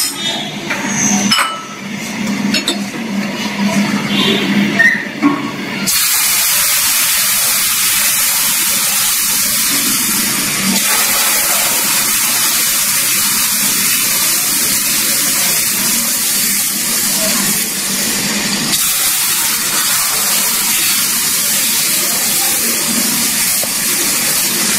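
Sugar syrup poured into moong dal and gram flour frying in hot ghee in a metal kadai: a loud, steady sizzling hiss starts suddenly about six seconds in. Before it, a ladle scrapes and clinks against the pan.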